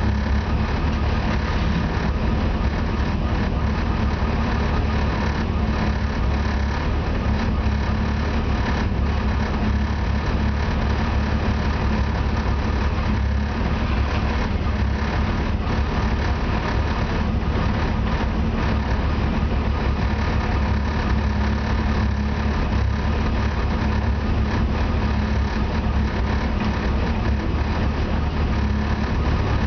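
Spec E30 BMW race car's straight-six engine idling steadily while the car sits stationary, heard from inside the cabin as a constant low drone.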